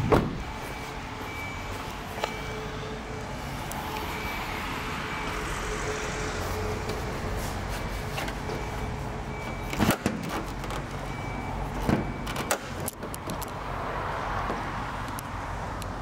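Steady low background noise broken by sharp clunks: one at the start, one about two seconds in, and a cluster about ten to thirteen seconds in, fitting a Toyota Hilux's bonnet being released and lifted.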